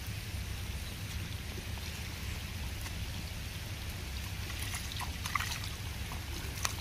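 Steady trickle of water running in a flooded rice paddy, with a couple of small splashes or clicks late on as hands work in the water.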